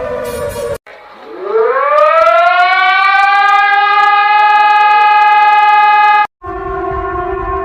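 Civil defense sirens in quick succession. The tail of one siren falls in pitch and cuts off abruptly. A second siren then winds up from a low pitch to a steady high wail, held for about four seconds. It is cut off suddenly and replaced by another siren sounding a steady, lower chord.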